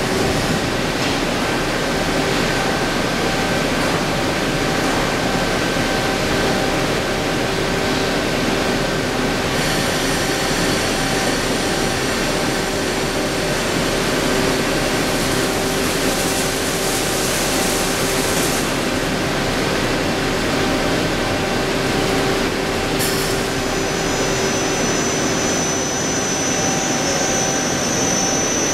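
HONOR Seiki VL-66A CNC vertical lathe machining a brake drum: a steady mechanical running noise with a held mid-pitched tone. High-pitched whines join in from about ten to eighteen seconds in, and a single high whine comes in again after about twenty-three seconds.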